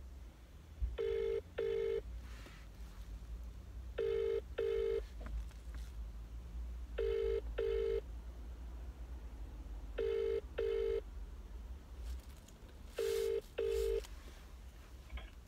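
British phone ringing tone heard through a mobile phone's loudspeaker: five double rings, each two short beeps, repeating about every three seconds as the dialled number rings without being answered.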